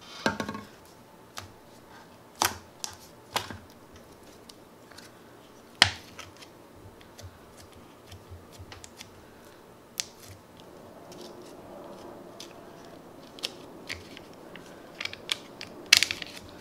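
Sharp clicks and crackles of a thin plastic dessert cup and its foil lid being handled and pressed down, coming singly with pauses between, with a soft rustle partway through and a quick cluster of clicks near the end.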